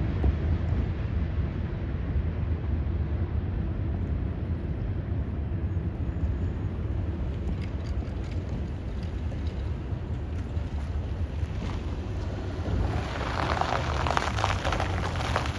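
Freight train cars rolling past: a steady low rumble of wheels on the rails, with a burst of rattling and clatter near the end.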